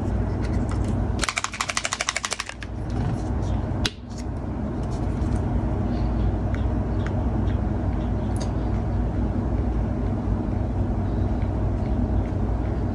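Bottle of acrylic model paint being shaken, rattling rapidly for just over a second about a second in, over the steady low hum of a motor. The hum drops out during the rattle and builds back up after a sharp click.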